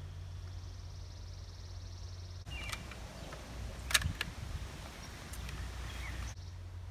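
A rifle being handled and loaded: a few sharp mechanical clicks and clacks, the loudest about four seconds in, with birds chirping. Before it comes a steady low outdoor hum.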